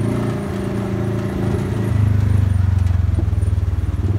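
Off-road buggy's engine running under way, a steady low rumble with fast pulsing that gets louder about two seconds in.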